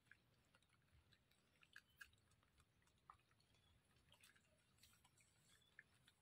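Faint, irregular crunching and clicking of a wild piglet chewing green plant stalks.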